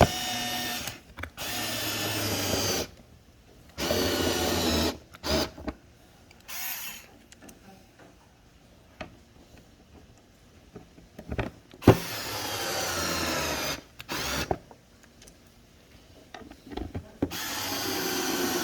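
Cordless drill/driver running in several short bursts, about five, each from half a second to three seconds long, as it drives screws into the door panel armrest; a sharp click sounds once midway.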